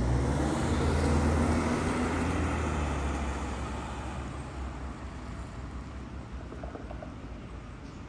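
A motor vehicle passing close by on the street, loudest about a second in and then fading away, its engine note dropping as it goes.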